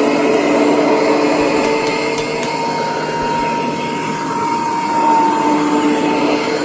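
Kirby 513 upright vacuum cleaner running steadily at full speed, its motor giving a steady whine.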